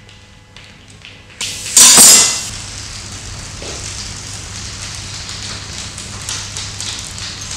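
A sudden loud burst of noise about a second and a half in, lasting under a second, followed by a steady crackling hiss.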